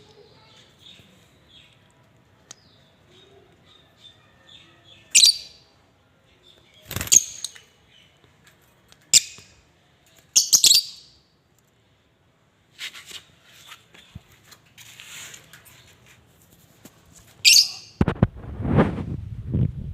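Parrot giving about five short, shrill calls spaced a few seconds apart, with softer chatter between them. A lower, noisier sound comes in near the end.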